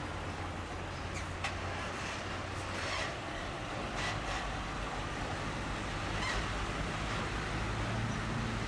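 Road traffic: a heavy tractor-trailer truck's engine runs with a steady low hum as it moves slowly past, among passing cars and a motorcycle. The hum grows stronger near the end.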